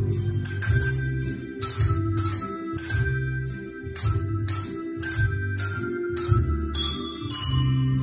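Children's ensemble of colour-coded hand bells ringing a tune, a new bell struck about every half second and left to ring, over a musical accompaniment with a steady low bass pulse.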